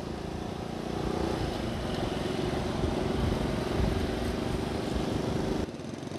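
Honda Grand Astrea's small single-cylinder four-stroke engine running steadily while riding, heard from on the bike under a rush of road noise. It drops suddenly about a second before the end.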